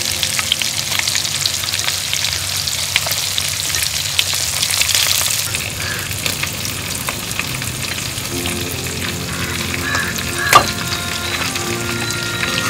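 Pieces of stingray fish frying in oil in a clay pot, a steady sizzle full of small crackles. About ten seconds in there is a single sharp click.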